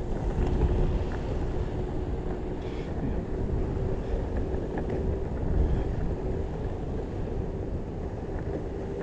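Wind rumbling on the microphone while riding an electric skateboard, with a faint steady whine from the board's motor and wheels at constant speed.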